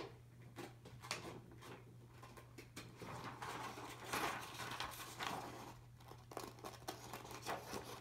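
Scissors snipping through paper while cutting out a small circle: a run of short, irregular snips.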